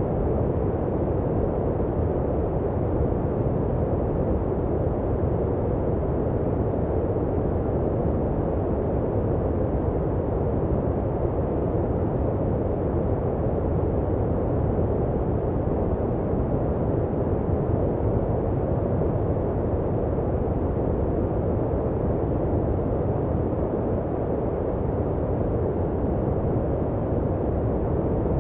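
Continuous steady noise with no change in level or pattern. It sounds deep and muffled rather than hissy, with most of its weight low and little high hiss.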